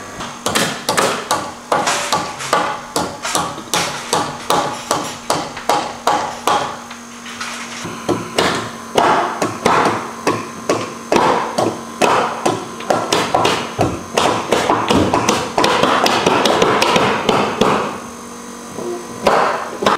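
Hammer striking in a quick, regular run of blows, two or three a second, over a steady hum; the blows come closer together and merge into a denser rattle from about three quarters of the way through, then pause briefly near the end.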